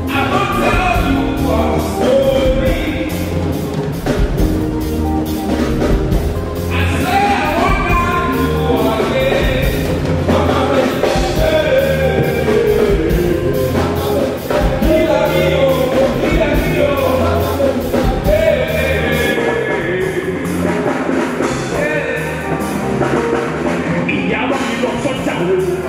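Live band music: a man singing into a microphone over electric guitars, bass guitar and a drum kit.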